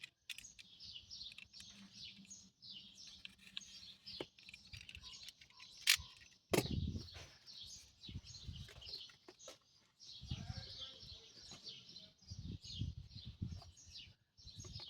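Birds chirping steadily in the background, short repeated chirps throughout. A sharp click about six seconds in, followed by low knocks and rustling from items being handled.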